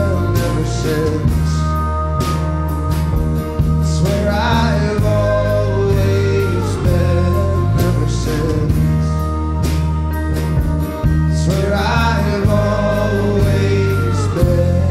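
Folk-rock band playing live: acoustic guitar, keyboard and drums, with voices singing over them.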